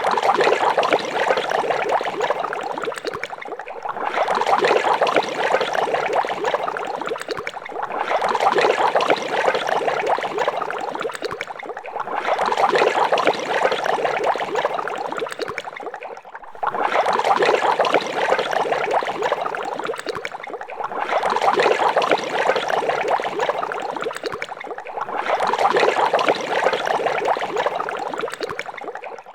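Water boiling hard in a large pot, a dense, steady bubbling that dips briefly about every four seconds.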